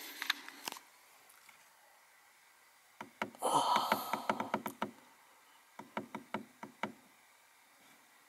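Buttons on a mirror dash cam clicking as they are pressed, in short runs of quick clicks, with a brief rustle of handling partway through.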